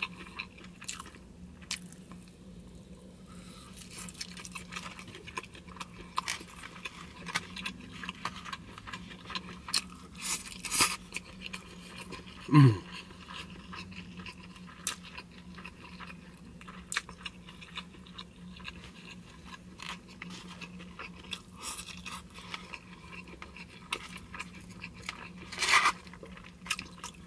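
Close-up chewing and biting of grilled meat and broken rice, with wet mouth clicks and the odd tap of a plastic fork in a foam takeout box, over a steady low hum. About halfway through comes one louder, short vocal sound that falls in pitch.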